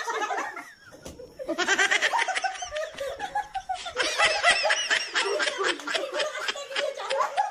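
A group of people laughing together, several voices at once; the laughter drops off briefly about a second in, then swells up again and keeps going.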